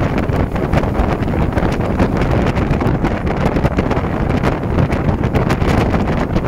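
Wind buffeting the phone's microphone over the low, steady rumble of a moving bus.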